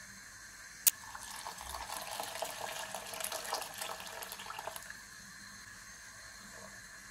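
A sharp click, then water poured from a cup into a pan of thick gravy, splashing for about four seconds before stopping.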